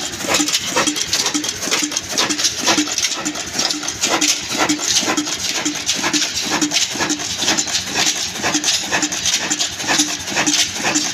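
Old black stationary diesel engine with a large flywheel running at a slow, steady speed: a regular beat of about three a second, with sharp metallic clicks and knocks over it.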